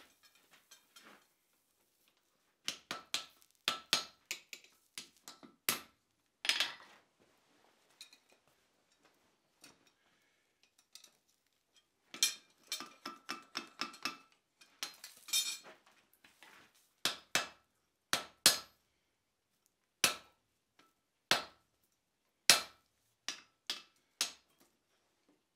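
Blacksmith's hand hammer striking red-hot steel on an anvil: blows in irregular groups with pauses between, then single strikes about a second apart near the end, some with a short metallic ring, plus lighter clinks of metal on metal.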